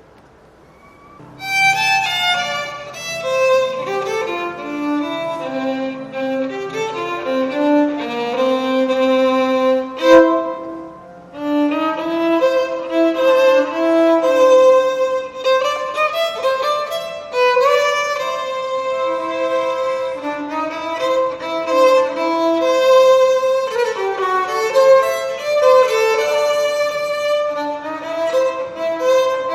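Violin playing a slow melody of held notes, starting about a second and a half in, with a low steady tone under the first few seconds; a sharp click about ten seconds in.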